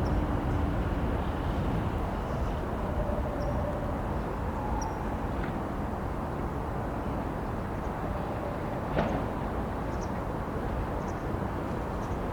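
Steady low outdoor rumble with a few faint, short, high-pitched chirps scattered through it, and one sharp click about nine seconds in.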